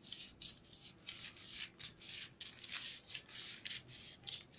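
Scissors snipping through folded newspaper, a steady run of short cuts about three a second, cutting a paper blouse pattern apart along its middle.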